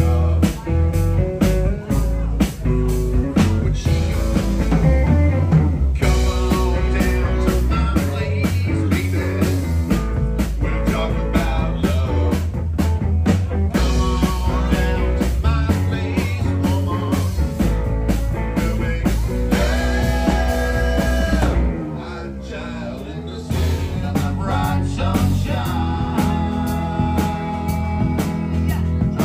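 Live rock band playing: electric guitar, bass guitar and drum kit, with a lead singer. The drums and bass drop out briefly about two-thirds of the way through, then the full band comes back in.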